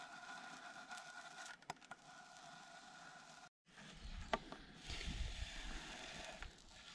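Black electrical tape being pulled off the roll and wrapped around a joint in red corrugated plastic conduit: a faint rasping with light ticks. After a brief break near the middle it turns into low rumbling and handling scrapes, with one sharp click.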